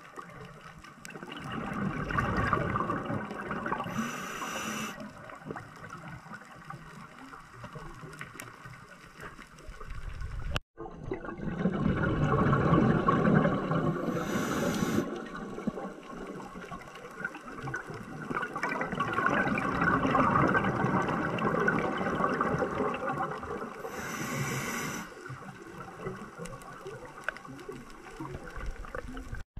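Scuba breathing underwater through a regulator: three long rushing swells of exhaled bubbles, each with a short high hiss of the regulator near its end. The sound drops out for an instant about ten seconds in.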